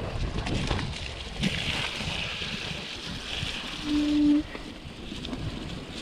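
Mountain bike riding through mud: a continuous rough rumble and hiss of tyres sloshing through the muck and the bike rattling, with a few knocks. About four seconds in, a short steady tone sounds for about half a second.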